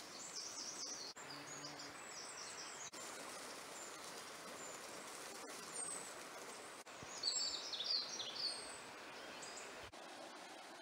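Small songbirds singing in short, high chirping phrases, once near the start and again louder about two-thirds of the way through, over a faint steady background hiss.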